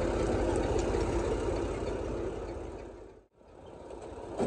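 Truck engine running steadily with a low rumble. About three seconds in it fades out to a moment of silence, then fades back in.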